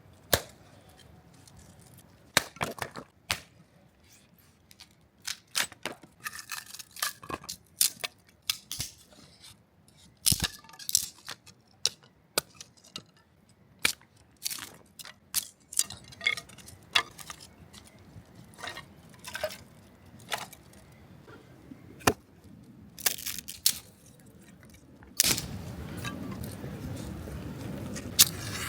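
Scattered sharp taps and crackles, then about 25 seconds in a steady rushing hiss of heavy rain sets in.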